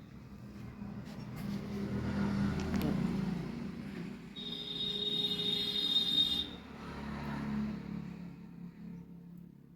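Road traffic going past: engine and tyre rumble swelling and fading several times as vehicles pass, with a high-pitched tone for about two seconds in the middle.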